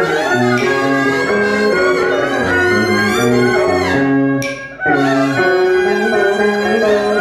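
Vietnamese traditional ritual-music (nhạc lễ) ensemble playing a melody of held, sliding notes. It breaks off briefly about four and a half seconds in, then resumes.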